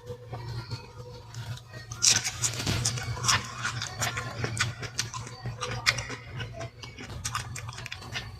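Fruit being bitten and chewed close to the microphone: an irregular run of crisp, wet clicks and crunches, busiest from about two seconds in, over a steady low hum.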